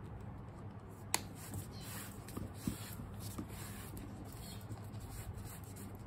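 Faint rubbing and rustling of a wipe being worked along a pebble-leather handbag strap as it is handled, with a sharp click about a second in and a smaller click near the middle, over a low steady hum.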